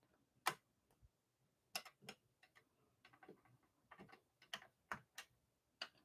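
Scattered light clicks and taps of small plastic ink pad cubes being handled, opened and set down on a glass craft mat, about nine in all at irregular intervals.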